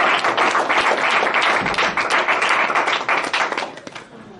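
Audience applauding with many hand claps, the clapping dying away near the end.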